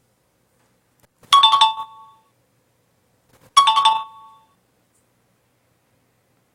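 Electronic chime sound effect played twice, about two seconds apart, each a bright bell-like ding that fades within half a second, used as an end-of-test signal.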